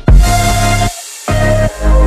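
Electronic dance music with a heavy, pulsing bass that drops out briefly about a second in.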